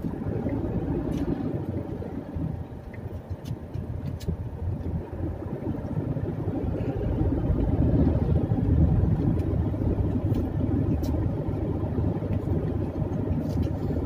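Car cabin noise while driving: a steady low rumble of engine and road, growing a little louder around the middle.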